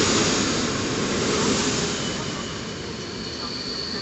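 Passenger train coaches rolling along the platform, a steady rumble of wheels on rails that eases off over the first two seconds. About halfway in, a steady high-pitched squeal from the train sets in and holds.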